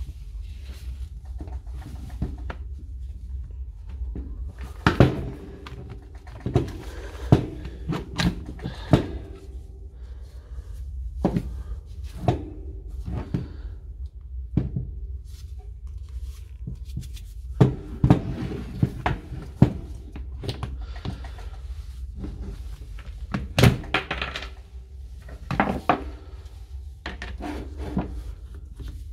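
Irregular knocks and clacks of a Milwaukee M18 Fuel impact wrench being taken apart by hand: its plastic housing halves and metal hammer case are handled, pulled apart and set down on a wooden bench, over a steady low hum.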